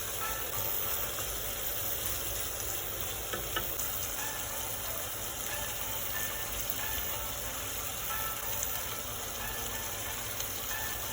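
Chicken frying in a pan, a steady sizzle with a few faint clicks.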